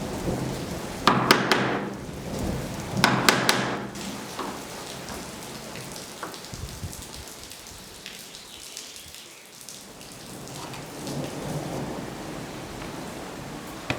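Steady rain during a thunderstorm, with two quick clusters of sharp knocks in the first few seconds.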